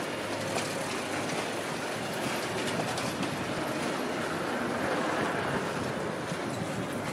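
Bicycles rattling over cobblestones as they ride past, a steady clattery rumble that swells a little about four seconds in.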